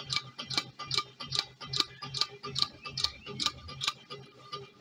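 Homemade horizontal alpha Stirling engine running slowly, giving a sharp mechanical tick about two and a half times a second, the ticks growing fainter near the end.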